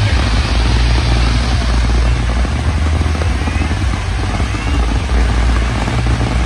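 Fireworks display going off continuously: a dense crackle over a steady, heavy rumble, with no single big bang standing out.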